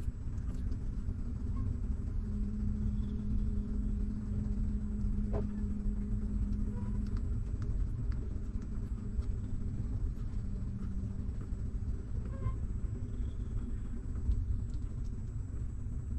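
Steady low rumble with a low hum over it, and a few faint, brief clicks.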